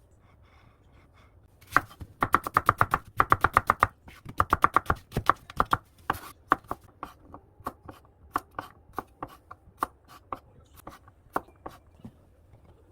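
Knife chopping vegetables on a cutting board: a fast run of quick strokes, about eight a second, then slower single cuts, about two or three a second.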